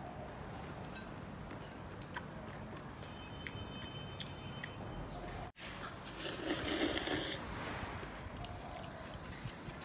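A person slurping sweet potato noodles in sour-spicy broth, one loud slurp of about a second and a half a little after halfway, with small clicks and chewing before it.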